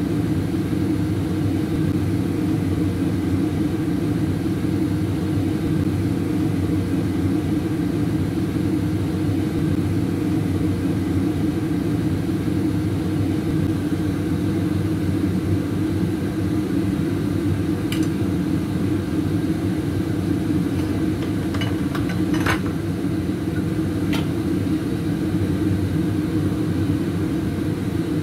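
Steady low hum and rumble of a running kitchen appliance, with a few light clicks in the second half.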